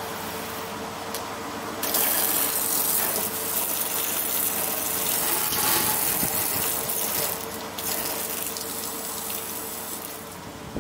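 Garden hose spray nozzle spraying water onto a car's body, a dense hissing splatter that comes on strongly about two seconds in and eases off near the end. A faint steady hum runs underneath.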